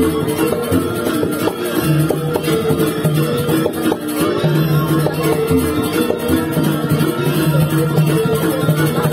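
Balinese gamelan music: metallophones play a stepping melody over sustained lower tones that drop out and return.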